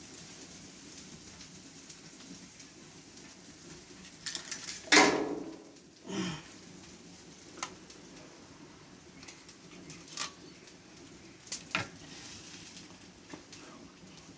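A metal spatula and a serrated bread knife clinking and knocking against a wooden cutting board, a handful of separate clacks with the loudest about five seconds in.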